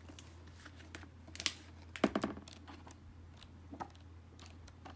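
Glossy pages of a hardcover book being flipped by hand: a few short paper rustles and taps, the loudest about two seconds in, over a low steady hum.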